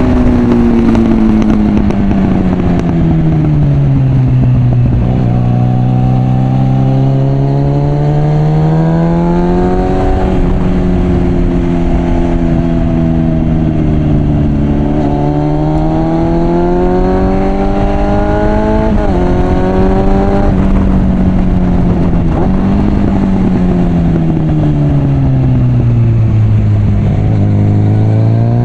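Suzuki GSF650 Bandit inline-four engine through an aftermarket Mivv exhaust, riding under varying throttle. The note falls as the bike slows, then climbs, dropping sharply in pitch at upshifts about ten and nineteen seconds in. It falls away again and starts climbing near the end.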